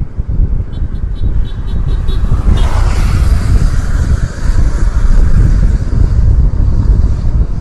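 A car driving on a flooded road, heard as heavy low rumble and wind buffeting the microphone, with a broad rushing noise that swells about two and a half seconds in.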